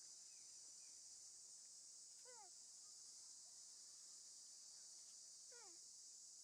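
Steady high drone of crickets or cicadas, with a baby monkey giving two short, thin cries that slide down in pitch, about two seconds in and again near the end.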